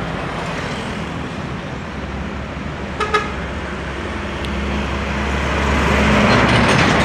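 Trucks passing close by on a busy road, their engine drone building to its loudest near the end as a flatbed trailer truck goes past. A short horn toot sounds once about three seconds in.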